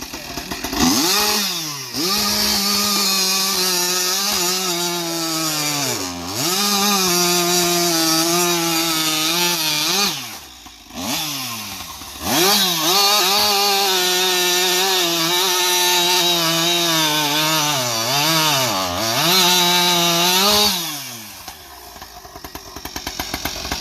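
Husqvarna 592 XP two-stroke chainsaw with an AutoTune carburettor and an aftermarket pipe, revved up and held near wide open, the revs dipping and picking back up several times, then dropping back to idle near the end.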